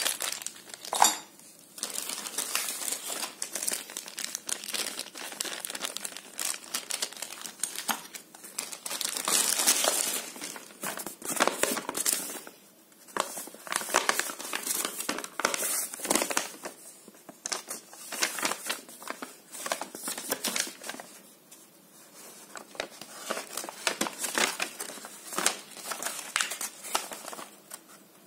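Plastic hardware bags crinkling as they are handled, then large paper instruction sheets rustling as they are unfolded and handled. Irregular crinkling with a few short pauses.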